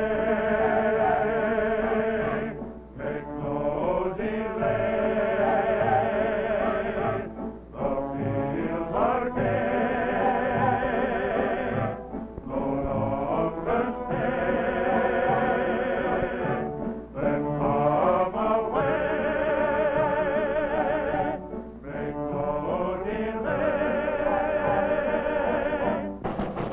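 A choir singing with instrumental accompaniment, in phrases of a few seconds with short pauses between them.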